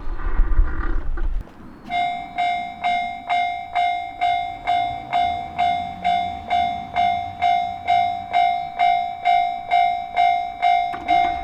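A passing train's low rumble cuts off about a second and a half in; about half a second later a Japanese level crossing's warning bell starts, ringing a repeated clanging tone about twice a second, the signal that a train is approaching and the crossing is closing.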